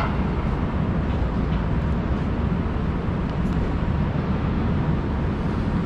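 Steady city street noise: a low, even rumble of traffic with no distinct events standing out.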